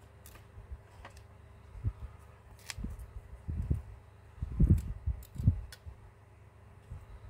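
Hands handling a disassembled smartphone frame and small parts on a desk: scattered light clicks and taps, with a few soft low thumps, the loudest just past the middle, as things are set down and a sheet of bubble wrap is laid out.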